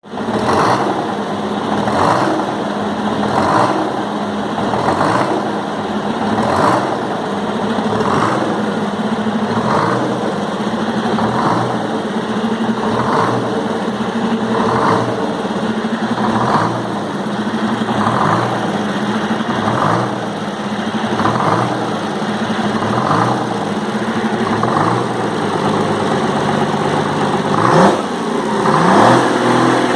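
Detroit Diesel 6-71 turbo, an inline-six two-stroke diesel, running on its first start-up with the valve covers off. It idles steadily with a swell about every one and a half seconds, and is revved up twice near the end.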